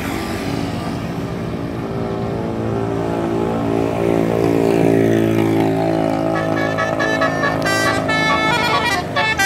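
Bus telolet horn, a multi-tone horn, sounding a held chord, then from about six seconds in playing a quick melody of short, changing notes.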